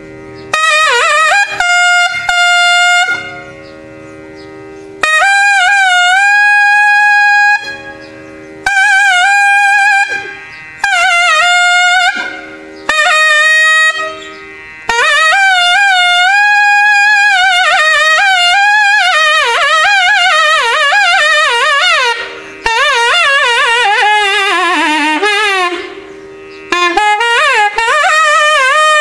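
Nagaswaram, the South Indian double-reed horn, playing raga Nalinakanthi in ornamented phrases with sliding, oscillating notes, broken by short pauses between phrases. A steady drone sounds underneath throughout.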